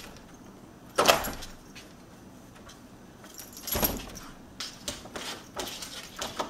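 A cat jumping up against a closed door and pawing at its round metal doorknob, trying to open it. The door and knob knock sharply about a second in and again near four seconds, then rattle with a run of smaller clicks.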